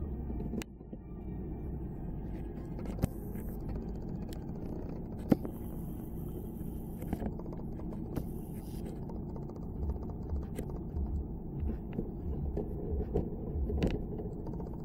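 Plastic pistol case being handled over a steady low rumble, with about half a dozen scattered clicks and knocks and a couple of brief hissy rustles.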